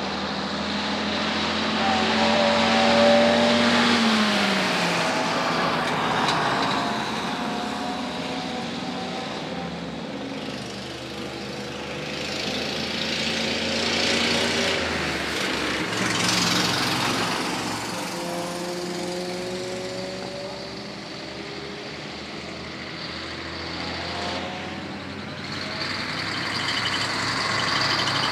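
Classic trucks driving past one after another, their engines pulling away with tyre and road noise. The engine notes glide up and down, and the sound swells as each truck goes by: loudest about three seconds in, again near the middle, and near the end.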